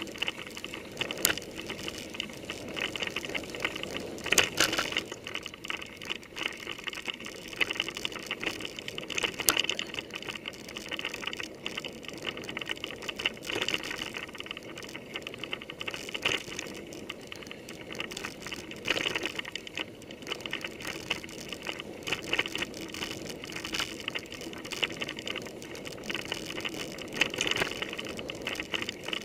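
Mountain bike ridden over a bumpy dirt forest trail, heard through a handlebar-mounted camera: a continuous rattle and rumble of tyres and frame, with sharp knocks from bumps several times.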